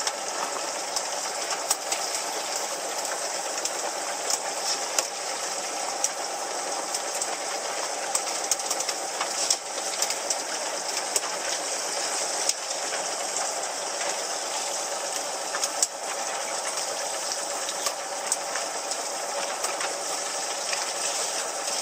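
Fishing boat's engine running steadily, with a constant hiss of wind and water and scattered small ticks.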